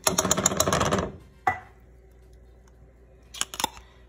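A tin can of tomato sauce being emptied into a metal skillet of ground beef: a rapid clatter of clicks for about a second, a single knock, then a few scattered clicks and taps near the end.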